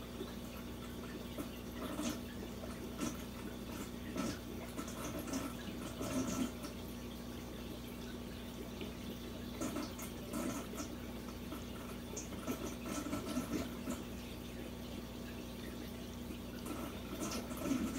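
Aquarium water trickling and bubbling, with small irregular drips and splashes over a steady low hum.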